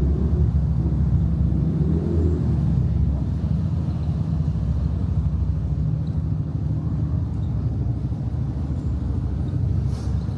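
Steady low rumble of town street ambience, dominated by road traffic, with a faint voice in the first couple of seconds and a small click near the end.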